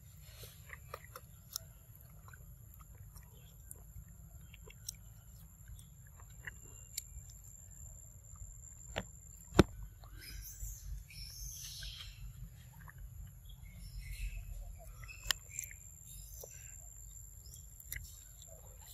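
Outdoor ambience with a steady high insect whine, birds chirping in short bursts a little past the middle, and scattered soft clicks and smacks of a long-tailed macaque biting and chewing a mango, including one sharp click about halfway through.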